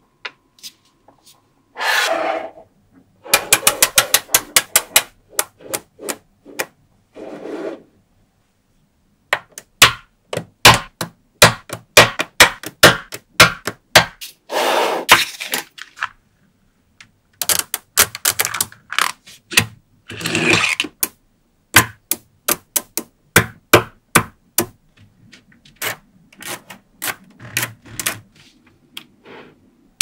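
Small magnetic balls clicking sharply as they snap onto one another, often in quick runs of clicks. A few short rasping rushes come as rows of balls slide and roll against each other.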